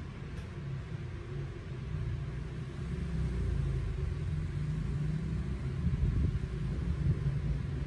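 A low rumble with a faint hum under it, swelling a little louder about two seconds in.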